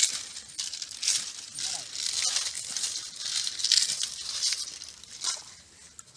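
Dry rice grains rattling and rustling in uneven swells, with small scattered clicks.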